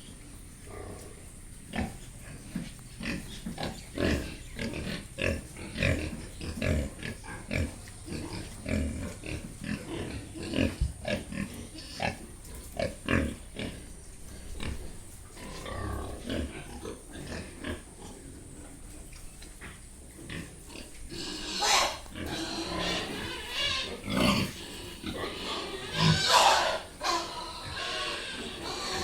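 Pigs grunting in short, frequent calls, with a few louder, higher calls in the last third.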